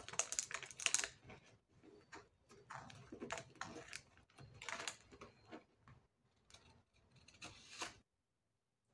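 Baking paper crinkling and rustling in several short bursts as a hand pulls a bun loose from a baked monkey bread; it stops about eight seconds in.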